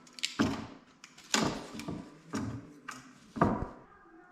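About six sharp, unevenly spaced knocks and clicks of tools and wood being handled while marking measurements for a cut.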